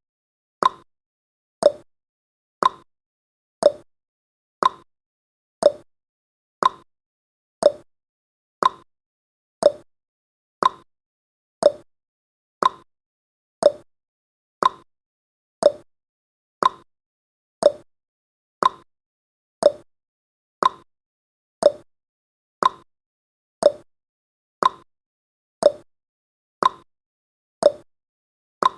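Clock-tick sound effect of a countdown timer: one short, sharp tick every second, evenly spaced.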